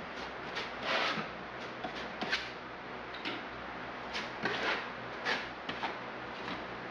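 An applicator scraping and dabbing thick waterproofing membrane into the seams and inside corners of a cement-board shower niche: a dozen or so short scraping strokes, unevenly spaced, over a steady hiss.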